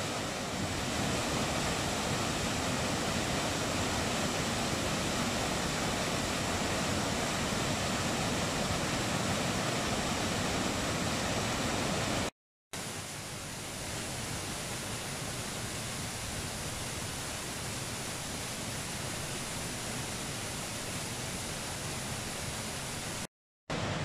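Suuçtu waterfall running high: a steady rush of falling, churning white water. The sound drops out for a split second about halfway through and again near the end, and is slightly quieter after the first gap.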